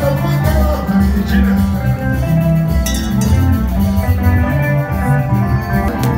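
Band music with guitar lines over a bass line and drums, playing steadily.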